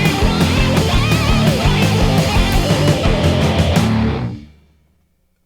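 Background rock music with electric guitar and a steady beat, fading out to silence about four seconds in.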